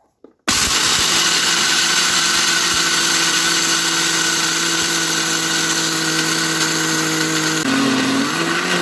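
Electric countertop blender grinding roasted peanuts into a coarse powder: the motor starts suddenly about half a second in and runs steadily at speed, then near the end its pitch drops and wavers.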